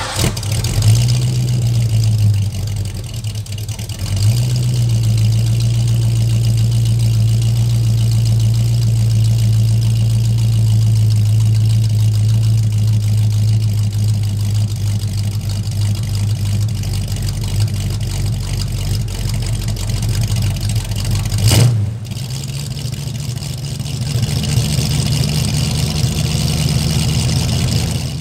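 Carbureted 1984 Ford Mustang 5.0L V8, breathing through headers, an H-pipe and a Flowmaster Flow FX cat-back exhaust, idling steadily just after a cold start. The idle sags briefly a couple of seconds in. About 21 seconds in, after a short louder burst, it settles at a higher pitch.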